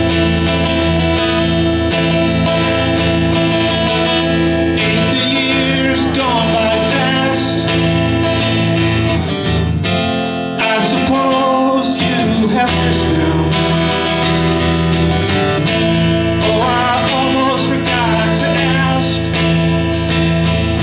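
Acoustic guitar strummed steadily in a live song, with a man's singing voice coming in at times over it.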